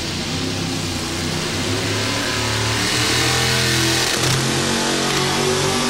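Modified four-wheel-drive pulling truck's engine at high revs as it pulls the sled, its note climbing, dipping briefly about four seconds in, then climbing again.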